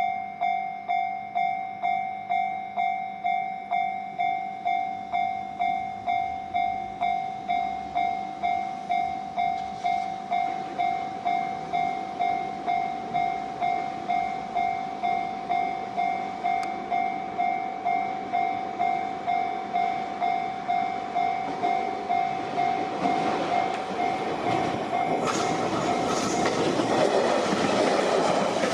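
Japanese level crossing warning bell ringing steadily, about one and a half strikes a second. About two-thirds of the way in a train's approach rises under it, and near the end the train passes the crossing with wheels clattering over the rail joints.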